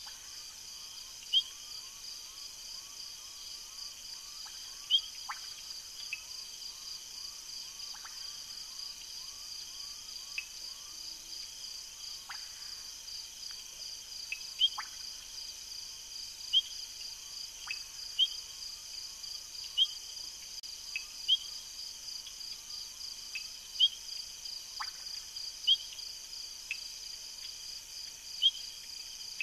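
Night chorus of crickets and other insects with a steady high trill. Over it come short, sharp high-pitched calls every one to three seconds, and during the first several seconds a rapid series of fainter, lower chirps, as from frogs.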